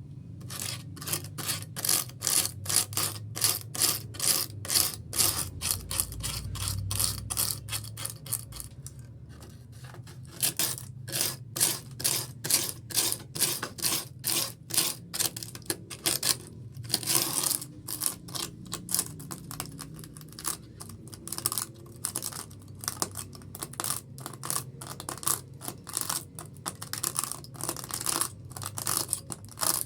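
Hand-sanding of a fibreglass repair: rapid back-and-forth abrasive strokes, about three a second, with a short pause about nine seconds in.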